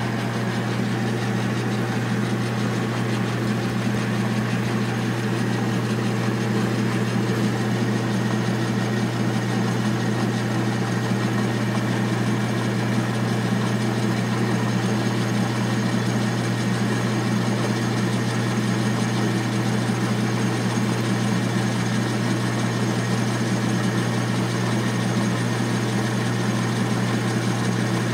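Metal lathe running steadily at speed, giving an even, unchanging hum from its motor and drive.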